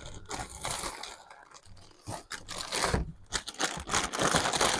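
Brown packing paper crinkling and crunching as it is handled and pulled out of a shipping box, in uneven rustles with a short lull about two seconds in.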